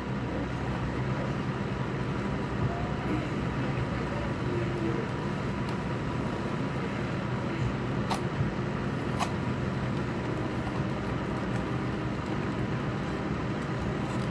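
Steady low hum and hiss of background noise, with two sharp clicks about eight and nine seconds in as a plastic blister pack of earbuds is handled.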